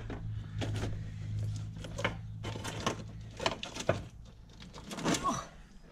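Scattered light clicks and knocks of hands working at old wiring and a relay in an engine bay, over a steady low hum that fades out near the end.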